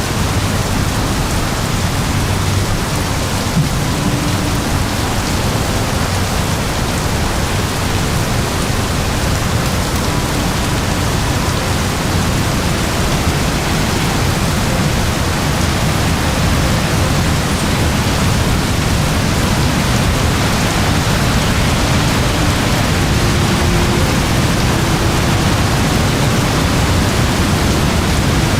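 Very heavy rain falling in a steady, dense hiss with a deep rumbling low end.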